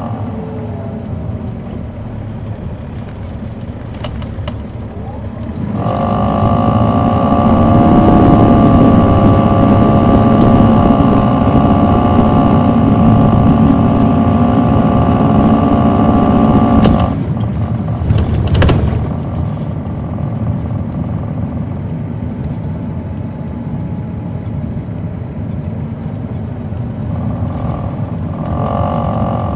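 Caterpillar C13 diesel of an MCI D4500CL coach, heard from on board. It gets louder about six seconds in and runs hard for about ten seconds with a steady whine over the engine, then drops off suddenly. A sharp knock follows, and it runs on more quietly.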